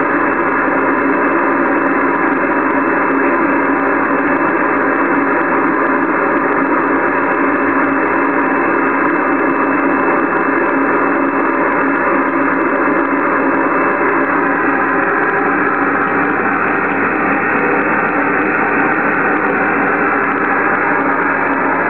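Yaesu HF transceiver receiving 12-metre SSB: a steady rush of band static through the speaker, confined to the narrow voice passband, while a weak station's signal lies buried in it.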